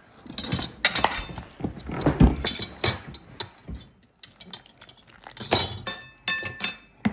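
Plates, glasses and cutlery clinking and knocking together as dishes are handled, a quick string of sharp clinks, a few of which ring briefly near the end.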